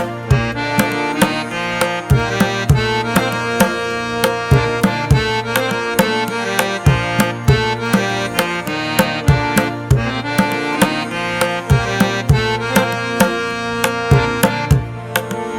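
Background music with a steady drum beat and sustained pitched instrument tones.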